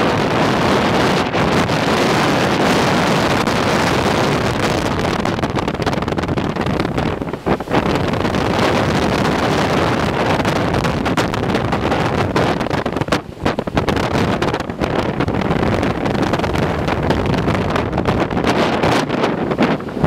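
Gale-force wind of about 36–39 knots buffeting the microphone on an open ship's deck: a loud, dense rush with brief lulls about seven and thirteen seconds in.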